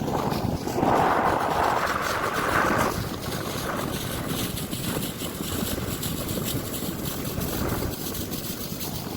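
A boat under way, its engine running steadily with wind rushing over the microphone; the rush is louder for the first three seconds.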